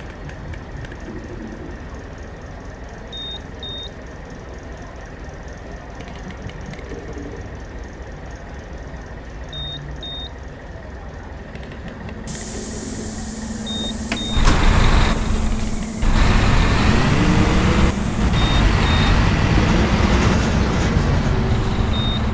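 Bus engine starting to pull away loud and heavy about two-thirds of the way in, its pitch rising and falling through the gears, after a rising hiss that fits an air-brake release. Short paired electronic beeps sound every few seconds throughout.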